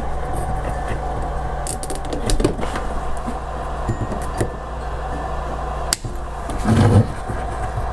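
Small clicks and taps of a brushless drone motor and the quad's frame being handled on a workbench, over a steady electrical hum; a louder bump comes about seven seconds in.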